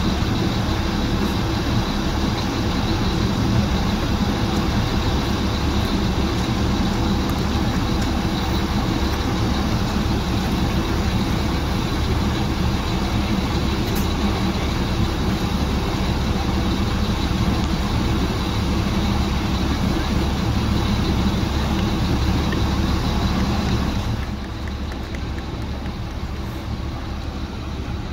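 Heavy diesel engine running steadily, dropping somewhat in level near the end.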